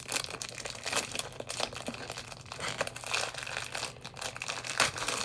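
Plastic packaging crinkling and tearing as a squishy toy is unwrapped by hand, with irregular crackles and one sharper crack near the end.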